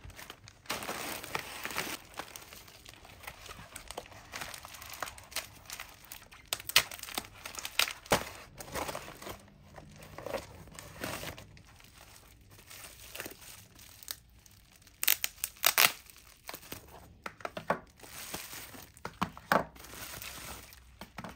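Plastic packaging crinkling and rustling as a holographic bubble mailer is handled and opened by hand and the bubble wrap inside is unwrapped, with irregular crackles and a few sharper, louder crackles and rips.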